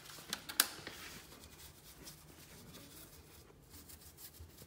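Faint scratchy rubbing on the fireplace's painted surface as antiquing powder is worked and wiped. Two sharp taps come within the first second, the second the loudest.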